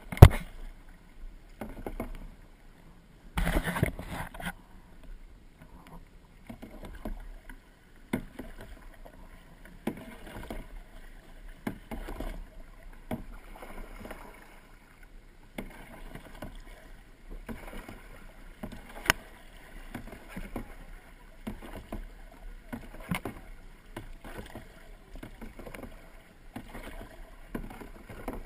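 Kayak paddle strokes: the blades dip and splash into the water about once a second, with a louder, longer splash about three and a half seconds in.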